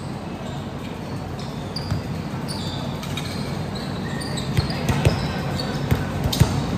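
Volleyball play on an indoor court: short sneaker squeaks on the floor throughout, then from about four and a half seconds in, several sharp thumps of the ball being struck, the loudest sounds.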